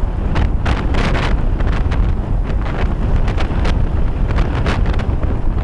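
Strong monsoon wind buffeting the microphone: a loud, continuous low rumble broken by frequent sharp crackles as gusts hit.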